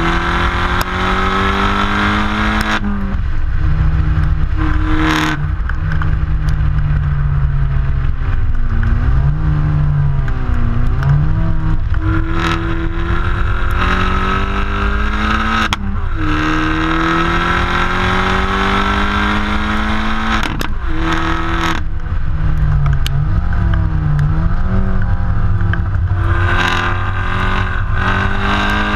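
Exhaust note of an Opel Corsa OPC Nürburgring's turbocharged four-cylinder at hard track driving, heard right at the tailpipe: the revs climb again and again, with brief breaks at each upshift, and fall away with wavering dips under braking and downshifts. A steady low rumble of wind and road noise runs underneath.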